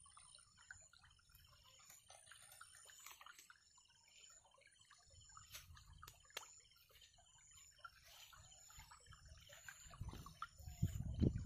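Faint open-air ambience of a flooded rice paddy: small birds chirping and insects keeping up a steady high buzz. Near the end a louder low rumble comes in.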